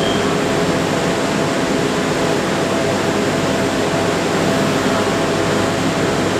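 A CNC lathe running: a steady mechanical hum with several held tones over an even hiss.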